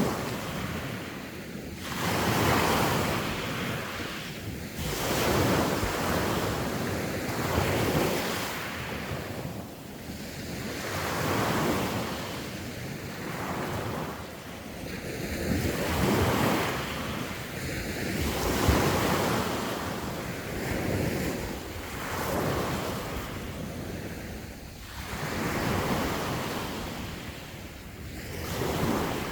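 Sea waves breaking and washing on the shore, swelling and fading every two to three seconds, with wind buffeting the microphone.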